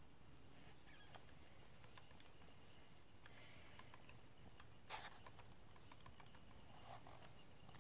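Faint scattered ticks and scratches of a cat's paws and claws on a plastic cat toy and carpet. There is one sharper click about five seconds in.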